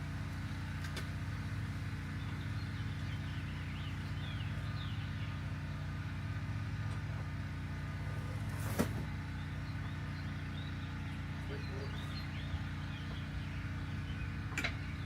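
A steady low mechanical hum, with a sharp click about nine seconds in and another near the end.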